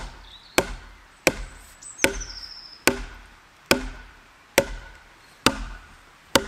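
A wooden stake being driven into the ground with a short log swung as a hand mallet: about eight sharp wood-on-wood knocks, a little more than one a second.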